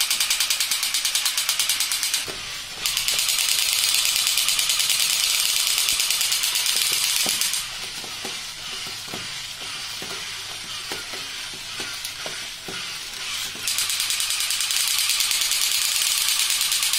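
Battery-operated crawling soldier toys running, giving a loud, fast rattle of their gun-firing effect and geared motors. The rattle dips briefly about two seconds in, then drops away for about six seconds from midway, leaving scattered plastic clicks and knocks, before starting up again about three seconds before the end.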